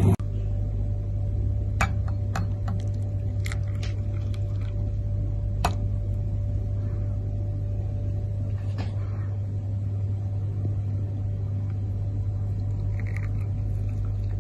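A steady low hum fills the background. Over it come a few light clicks and clinks of a china cup and cutlery being handled on the table, mostly in the first six seconds.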